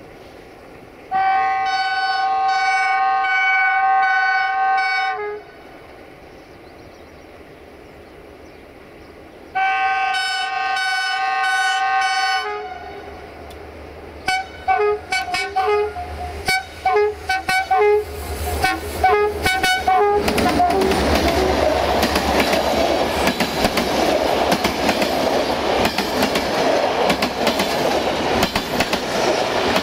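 Diesel train sounding its horn in two long blasts, then a quick string of short toots as it approaches. The engine rumble grows, and from about two-thirds of the way in the train passes with loud, steady wheel-on-rail clatter.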